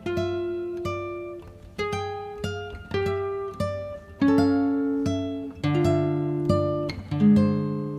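Background music: an acoustic guitar picking unhurried single notes and chords, each one plucked sharply and left to ring out.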